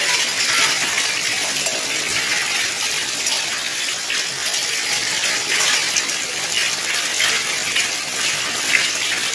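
Hail and rain falling steadily, a dense patter of many small hard clicks as hailstones strike the ground and paving.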